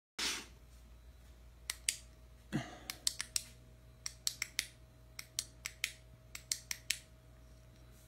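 A run of sharp, irregularly spaced clicks, nearly twenty of them, starting a little under two seconds in and stopping at about seven seconds.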